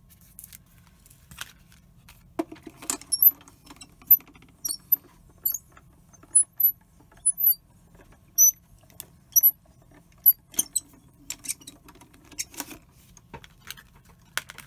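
Cutting plates and a paper die being handled and run through a die-cutting machine, with a string of small clicks and many short high squeaks. A low steady run of the machine comes briefly at about three seconds in and again from about ten to thirteen seconds in.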